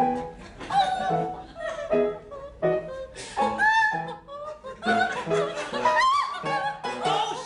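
A woman singing an operatic soprano line, accompanied on a grand piano that strikes repeated chords.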